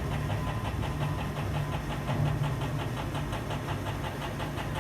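A motor running with a steady low hum and a fast, even ticking of about nine ticks a second.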